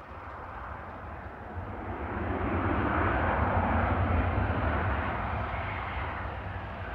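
Jet engine noise of an Aer Lingus Airbus A320 on its landing rollout: a distant rushing roar with a deep rumble beneath, swelling to a peak about halfway through and then slowly easing.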